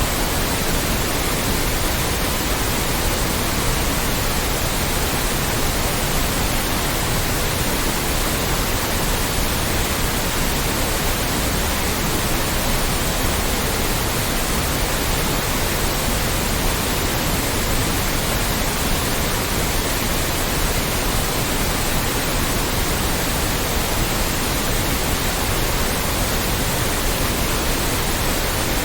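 Loud, steady synthetic white noise: an even, unchanging hiss spread across the whole range from deep rumble to high hiss.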